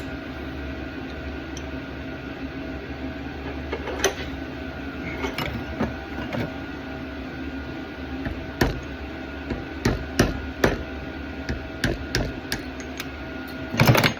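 Hammer blows driving an old bushing out of a Jeep door hinge: uneven sharp strikes, a few at first and then coming thick and fast in the second half, the loudest burst of blows near the end.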